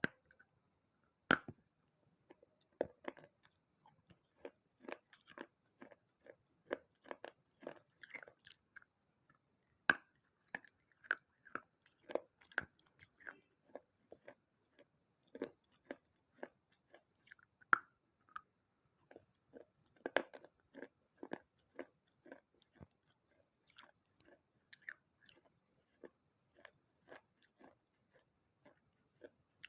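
Close-up crunching and chewing of baked clay pieces from a water-soaked clay pot and saucer: dense irregular crackles, with a few sharp louder cracks now and then.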